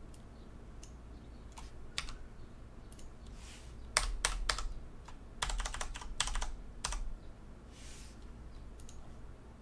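Computer keyboard keys being pressed: a few separate clicks at first, then a quick flurry of key presses in the middle.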